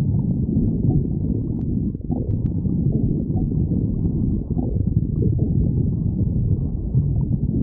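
A person's empty stomach growling and gurgling: a continuous low rumble with short, higher gurgles breaking through it every second or so.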